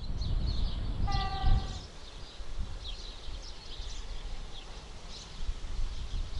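A short, flat-pitched toot of a locomotive horn about a second in, lasting under a second, over a low rumble and birds chirping.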